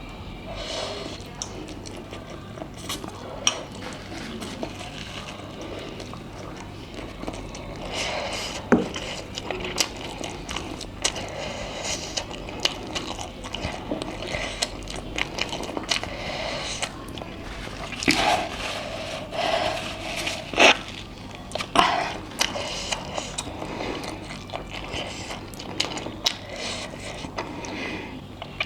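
Close-miked eating sounds of spicy instant noodles being chewed and slurped, with many small wet mouth clicks and a few louder bursts about 18 to 22 seconds in.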